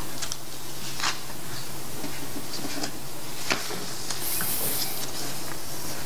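Room tone of a hall heard through the sound system: a steady low electrical hum and hiss, with a few faint clicks and a brief rustle about four seconds in.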